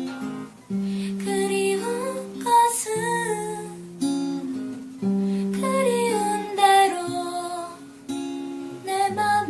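Music: acoustic guitar playing, with a singing voice carrying a melody over it.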